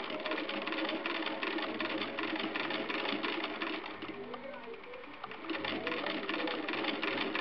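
1911 Minnesota D hand-crank sewing machine stitching: a fast, even clatter from the needle mechanism. It eases off a little about halfway through, then picks up again, over background music.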